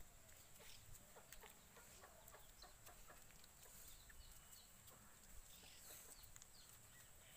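Near silence: faint outdoor ambience with a few soft clicks and brief faint chirps.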